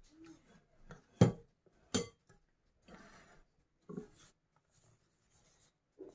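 Spatula folding thick batter in a metal mixing bowl: faint scraping, with two sharp knocks against the bowl about one and two seconds in and a lighter one near four seconds.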